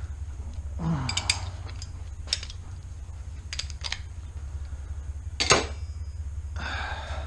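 Hand tools clinking and tapping on metal, as wrenches and sockets are picked up and handled: scattered sharp clinks, the loudest about five and a half seconds in, with short rustles and a steady low hum underneath.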